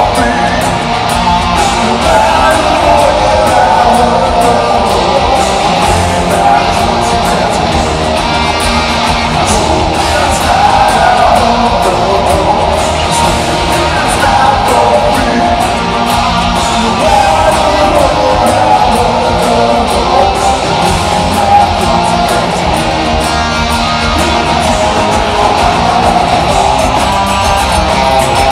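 Hard rock band playing live and loud: electric guitars, acoustic guitar, bass and drums.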